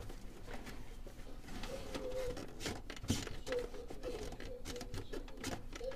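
Hard disk drive in a desktop PC clicking and ticking at irregular intervals. The read/write head is knocking about instead of reading the platters, the sign of a failing hard disk.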